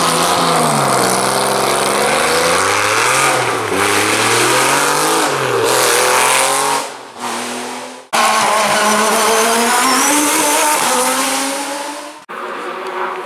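A Porsche 911 racing car's engine accelerates hard up the hill, its pitch climbing and dropping back several times as it shifts up through the gears. About eight seconds in, the sound cuts to another race car engine climbing steadily in pitch. This also stops abruptly about a second before the end.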